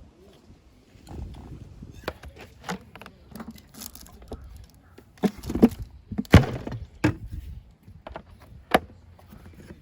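Irregular knocks and clatters of cooking gear and utensils being handled and set down, the loudest a little past halfway.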